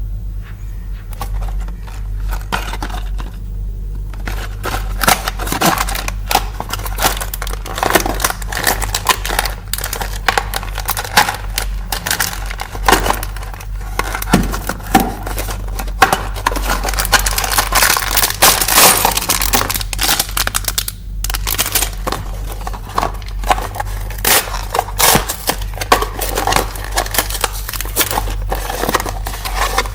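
Packaging of a Lego power-up pack being opened: crinkling, rustling and tearing, with many small clicks and knocks, over a steady low hum.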